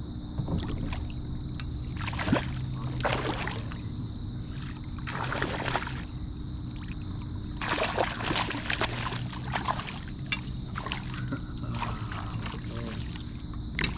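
Water splashing and sloshing against a kayak in a series of swishes, with a few small knocks, over a steady low hum.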